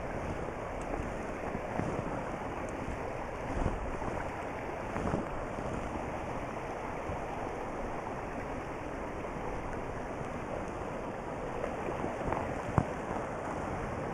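Shallow mountain stream running over stones, a steady rush of water, with one sharp knock near the end.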